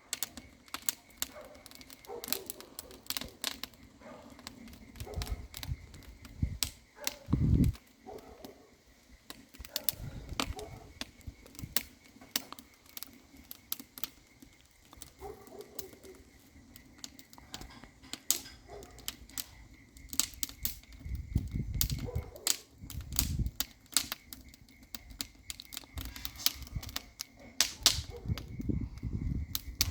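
Wood fire crackling, with dense irregular sharp pops and snaps, and a few low rumbles, the strongest about seven and a half seconds in.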